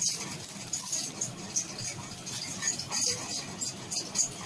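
Light, irregular rattling and rustling as the smartwatch and its box packaging are handled.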